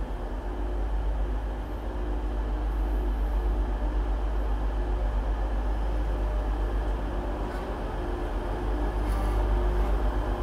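TransPennine Express Class 185 diesel multiple unit rolling slowly past along the platform, its underfloor diesel engines running with a steady low drone and rumble. There are a couple of faint clicks near the end.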